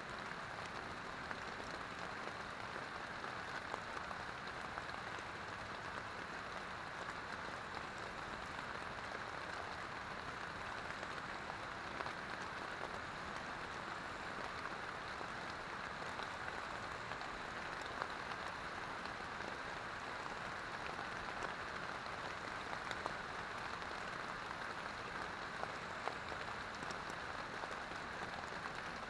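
Steady rain falling on a tent, with the odd louder drop tick now and then.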